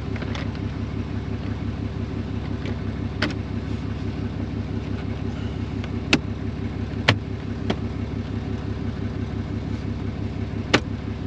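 2017 Ram 2500 pickup's engine idling steadily. Several sharp plastic clicks and snaps are spread through it as steering-column trim covers are pressed back into place.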